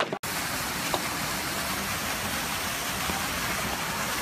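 Steady rush of splashing water from a pond's water feature, cutting in abruptly just after the start.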